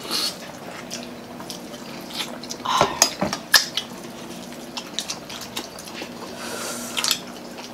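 Eating at a table: spoons and forks clinking and scraping on ceramic plates, with chewing and mouth noises. There are a few sharp clinks about three seconds in and again near the end.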